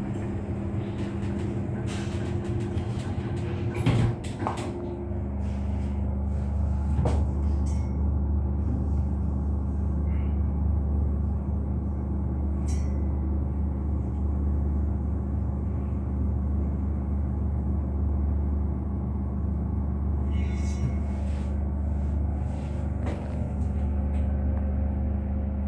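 Thyssen elevator doors sliding shut and closing with a knock about four seconds in. The car then starts and runs down with a steady low hum from its drive.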